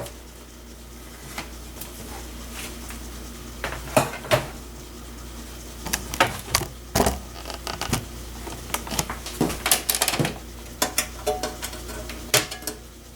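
Side panel of a Dell desktop PC case being slid off and handled: scattered metallic clicks, knocks and clatter, sparse at first and busier from about halfway through.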